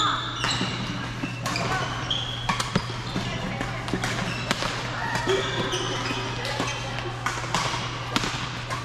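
Badminton play: sharp, irregular racket hits on shuttlecocks from this and the neighbouring courts, with short squeaks of court shoes on the floor and distant voices over a steady low hum.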